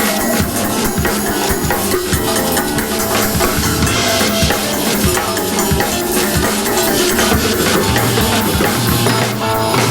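Band music led by a busy drum kit, with many quick strikes of bass drum and snare over sustained guitar and bass.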